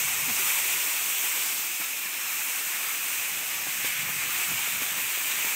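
Skis sliding over packed snow, a steady high-pitched hiss.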